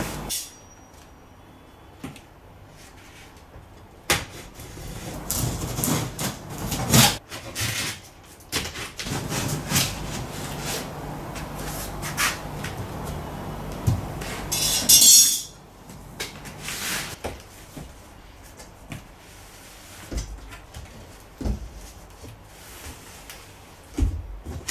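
A large cardboard shipping box being handled and opened: scattered knocks, scrapes and rustling of cardboard, with a loud tearing scrape about fifteen seconds in.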